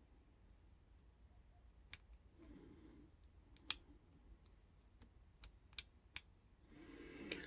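Faint, scattered clicks of a steel lock pick working the pin stack of a Chubb rekeyable aluminium padlock held under tension, the pins clicking as they are set. The loudest click comes about three and a half seconds in.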